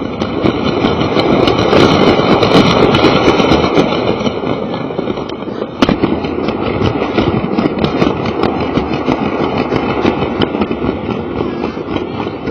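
Battery-powered Lego toy train running along its plastic track, heard right up against the camera riding on it: a steady, loud motor and gear noise with many small clicks from the wheels and track joints, and one sharper click about six seconds in.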